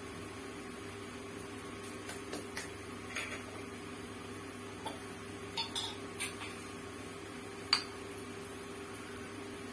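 Scattered light clinks and taps of steel kitchen utensils and a glass jar being handled as cooking oil or ghee is spooned out. The sharpest clink comes near the end, over a steady low hum.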